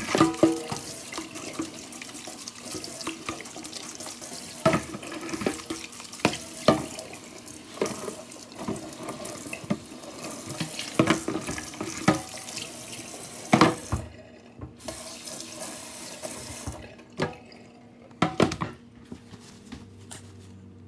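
Kitchen tap running into a plastic bowl in a stainless steel sink while raw pork belly is rinsed and rubbed by hand, with scattered knocks and splashes. The water stops about fourteen seconds in, runs again briefly, then is shut off, leaving a few knocks.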